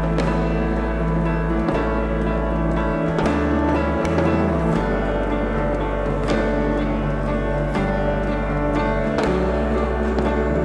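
Background music with long held notes over a low bass line that changes every second or two, and a soft beat about every one and a half seconds.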